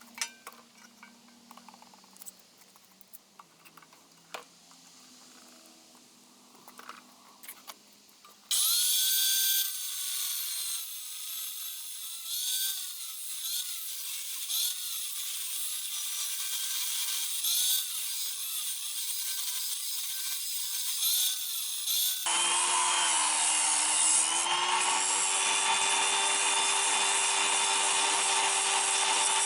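Angle grinder grinding worn steel on an excavator bucket's ears. It starts suddenly after several seconds of small clicks and knocks, its whine rising and falling over and over. After a cut, the grinding goes on with a steadier tone.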